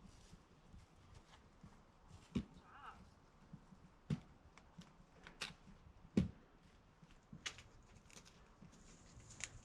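Footsteps of hikers on a trail: irregular faint crunches and thuds, with a few heavier steps about two, four and six seconds in.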